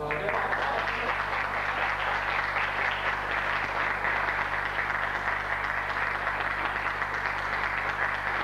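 Audience applauding steadily in a theatre hall. The applause breaks out at once and keeps an even level.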